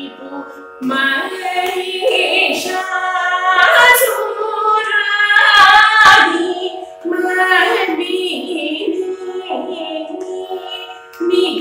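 A woman singing Carnatic vocal music solo, in long phrases with gliding, ornamented notes and short breaks between them, over a steady drone.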